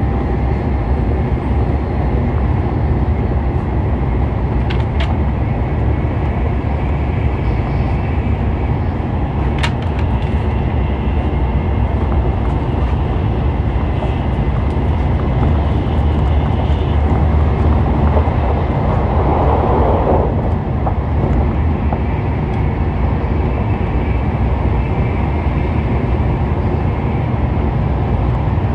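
Tokaido Shinkansen train running at speed, heard from inside the passenger cabin: a steady, loud rumble and rush of running noise, with a brief swell about two-thirds of the way through.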